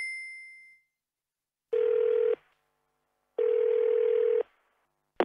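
A chime fading out over the first second, then a telephone ringing tone on the line sounding twice: a short buzzy tone about two seconds in and a longer one about a second later, the signal that the called phone is ringing. A sharp click near the end.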